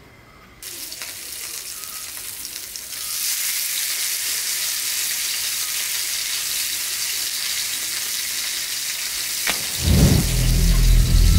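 Fish coated in green masala paste frying in hot oil on a flat tawa, a steady sizzle that starts under a second in and grows louder about three seconds in. Near the end a sudden deep rumbling whoosh cuts in.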